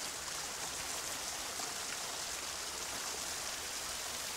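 Running water of a small spring, a steady even hiss.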